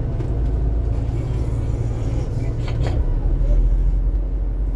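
Double-decker city bus running, a steady low engine and road rumble that deepens about three seconds in, with a few brief knocks just before.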